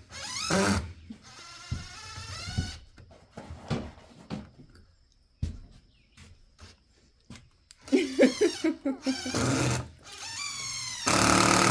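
Wordless high, wavering vocal squeals and laughter from young children at play, near the start and again in the last few seconds, with a few light knocks between.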